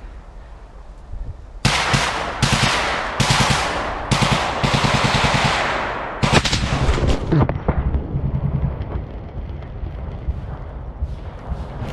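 Several bursts of automatic machine-gun fire at close range, starting about a second and a half in and going on for about six seconds, each burst a rapid string of loud shots. After that the sound turns muffled, with scattered knocks.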